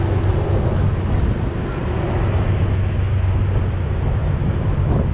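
Passenger ferry under way: a steady low engine drone with wind buffeting the microphone.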